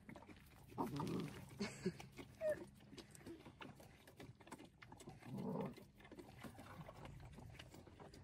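Faint sucking and slurping of a young calf drinking from a hand-held milk bottle, in two short bouts about a second in and past halfway, with small clicks between.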